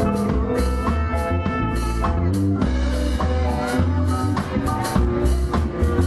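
Live band music with drum kit, bass and guitar playing a steady beat.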